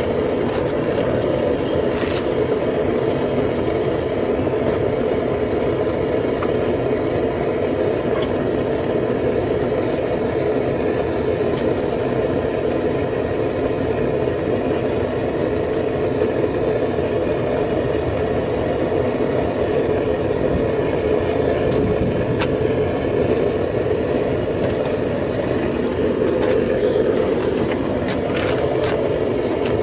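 Propane burner firing a homemade metal-melting furnace: a steady, unbroken rushing noise, with a few faint clicks.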